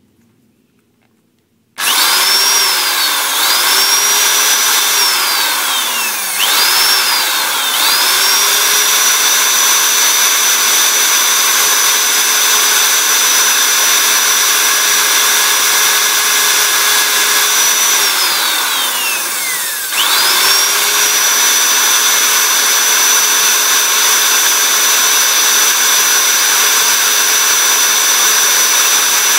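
Electric drill fitted with a conical grinding stone, switched on about two seconds in and running at speed with a steady high whine. It coasts down and is started again twice in the next few seconds, then runs steadily. It winds down slowly and starts up again about twenty seconds in. A small wooden stick is held against the spinning stone to grind it to shape.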